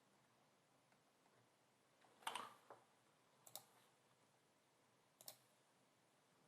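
Near silence, broken by four faint, short clicks a second or so apart around the middle.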